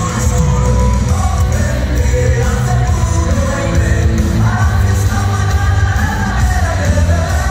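Loud dance music played over a DJ sound system: a heavy, steady bass beat with a singing voice over it.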